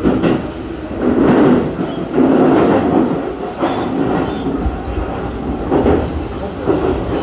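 E233-series electric commuter train running between stations, heard from inside the front car: a steady rumble of wheels on rail with repeated louder swells of wheel noise every second or so.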